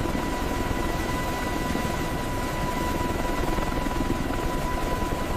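Steady machine drone: a low rumble and rushing noise under a constant high whine, like a helicopter or heavy lifting machinery running.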